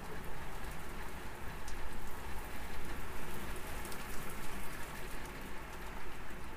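Steady rain falling on a gravel yard and stone patio slabs, many small drop ticks close together, with a low wind rumble on the microphone underneath.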